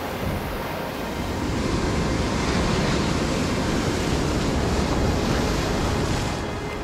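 Ocean surf breaking and washing over coastal rocks: a steady rushing that swells about a second and a half in and eases near the end.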